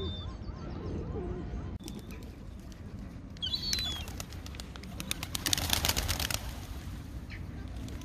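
Feral pigeons taking off from the ground: a flurry of wing claps and flapping wings, starting about three and a half seconds in and loudest around six seconds. A brief high bird call comes just as the flapping begins.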